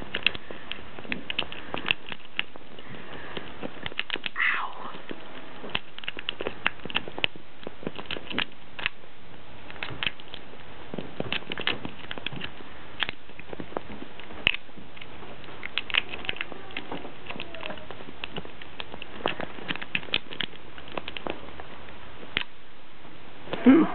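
Half-hook lock pick and tension wrench working the pin tumblers of a lock: irregular small metallic clicks and scrapes, over a steady background hiss.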